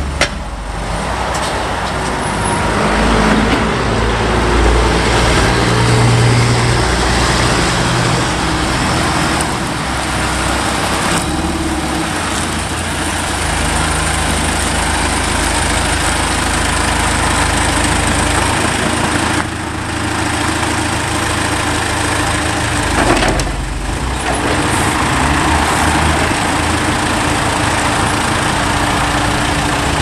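John Deere 410E backhoe's four-cylinder 4045T diesel engine running, its speed stepping up and down several times.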